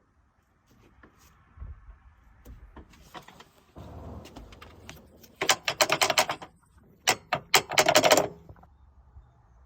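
Metal hardware clicking and rattling: a few scattered clicks, then two bursts of rapid clicks, about halfway through and again near the end.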